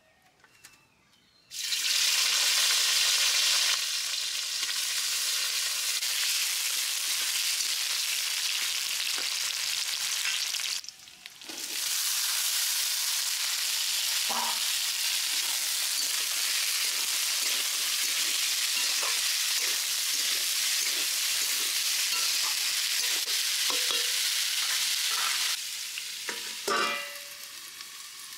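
Sliced bitter gourd sizzling loudly in hot oil in a steel kadhai. The hiss starts suddenly about a second and a half in, and a steel spatula scrapes now and then as it is stirred. Near the end the sizzle drops to a softer hiss as a steel plate is set over the pan, with a few metal clinks.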